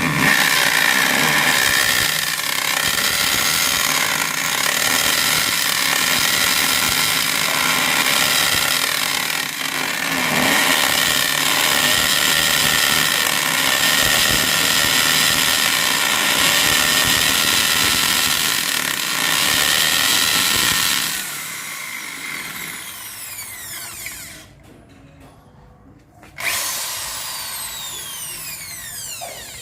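Makita HP1630 corded hammer drill running at full speed for about twenty seconds, then winding down with a falling whine. After a short pause it is triggered again briefly and spins down once more.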